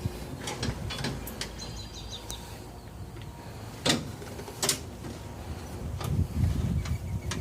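Scattered metal clicks and clunks from a five-point racing harness's buckle and straps being handled, about eight in all, the loudest near the middle. Birds chirp briefly in the first couple of seconds.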